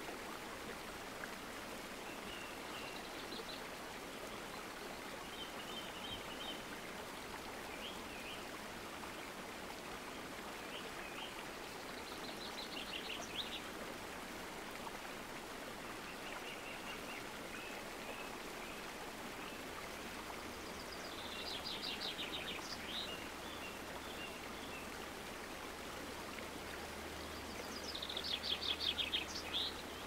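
Rocky forest stream rushing steadily over boulders, with songbirds singing over it: scattered chirps and several quick trills, the loudest trill near the end.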